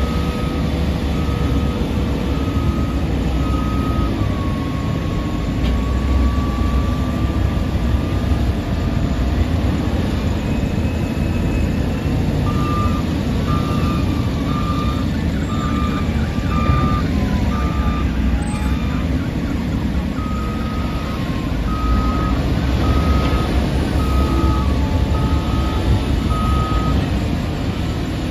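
Heavy diesel earthmoving machines running with a steady low rumble, a LiuGong 856H wheel loader and hydraulic excavators. A reversing alarm beeps about once a second in three spells: in the first few seconds, from about 12 to 18 seconds, and again from about 20 to 27 seconds.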